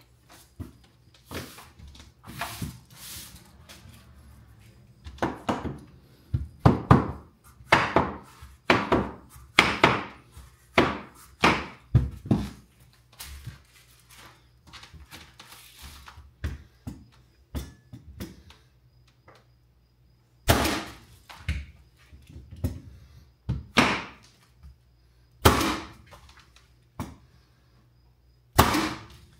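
Hardwood flooring being fastened: repeated sharp knocks of a mallet striking a pneumatic flooring stapler and the floorboards, each blow on the stapler driving a staple into the board's tongue. A quick run of knocks comes in the first half, then four heavy single blows a couple of seconds apart.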